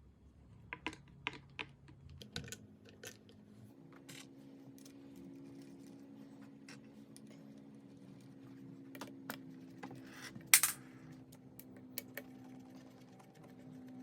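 Scattered light clicks and taps of hands and tools working small plastic trim pieces and parts loose, with one sharper click about ten seconds in. A faint steady hum comes in about four seconds in.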